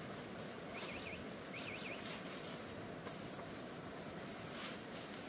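Steady outdoor background noise with two quick runs of short high chirps from a small bird, about one and two seconds in.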